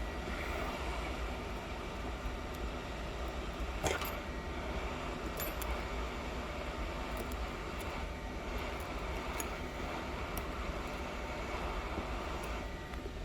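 Steady whirring air noise of a blower running, with a few light clicks from tools being handled; the loudest click comes about four seconds in.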